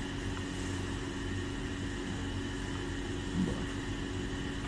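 Steady background machine hum with a few fixed tones, and one faint short knock about three and a half seconds in.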